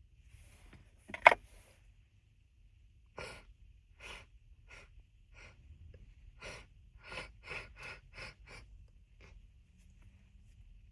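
A person's stifled sneeze, one sharp loud burst about a second in, followed by a string of about ten short sharp breaths through the nose that come faster near the end.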